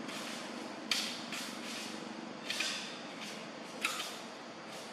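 Leaves and grass rustling in three short, crackling bursts, about a second in, near the middle and near the end, over a steady outdoor hiss.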